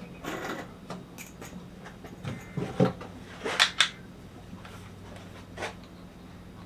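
Workshop handling noises: scattered clicks and knocks of wood and tools being moved on a bench, the sharpest pair about three and a half seconds in, over a faint steady hum.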